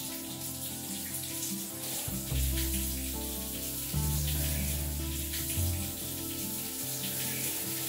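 Shower spray running steadily, with a soundtrack of sustained low music notes that shift every second or two.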